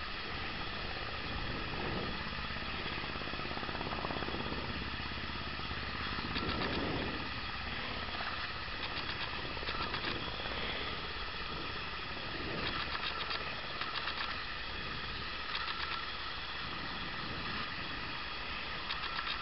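Minimax ultralight's three-cylinder Verner radial engine droning steadily overhead, heard over a low, uneven rumbling noise.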